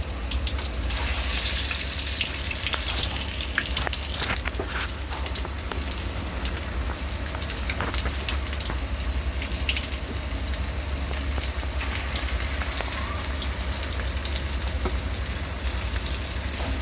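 Chicken leg pieces deep-frying in hot oil in a kadai: a steady sizzle with scattered crackles and pops, stronger for the first few seconds.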